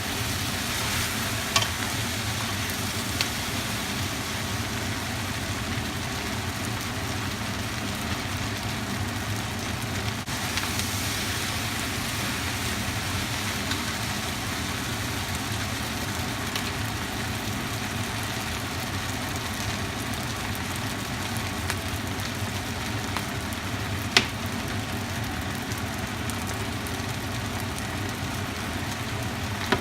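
Food sizzling steadily in a hot pan during stir-frying, with a few sharp clicks of a utensil against the pan, the loudest about three-quarters of the way through.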